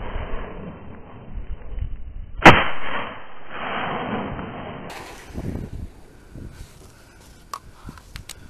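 A single shotgun blast about two and a half seconds in, followed by its report fading away for about two seconds.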